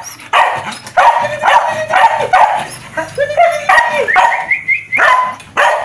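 Dog barking repeatedly, about two barks a second, with a quick run of high yips a little before the end. It is barking at a cat lying in its path that it is afraid to get past.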